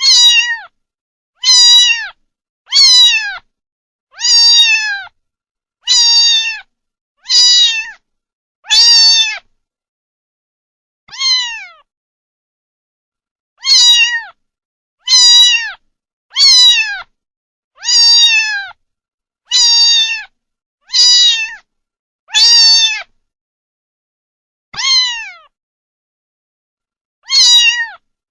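Domestic cat meowing over and over: short meows, each falling in pitch, coming about one every second or so, with two longer pauses.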